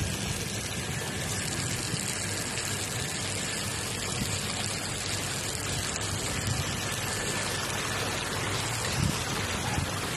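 Garden sprinklers spraying water over a lawn, a steady rain-like hiss of falling spray.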